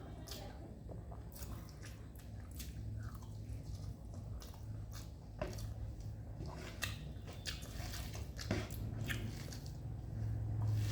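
Close-up eating sounds: chewing and biting a mouthful of rice and fish curry, with scattered small wet mouth clicks.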